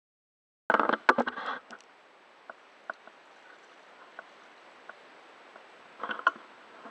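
Kayak paddling heard from a camera mounted on the boat: after a moment of silence, a loud flurry of paddle splashes and knocks on the kayak hull about a second in. Then come faint water lapping and single drips or ticks, and another splashing burst near the end.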